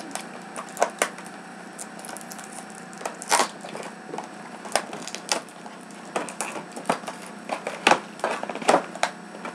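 Packaging of a boxed Gelatos art set being opened by hand: irregular crackling, tearing and clicking of cardboard and wrapping. The louder crackles come about three seconds in and again near the end.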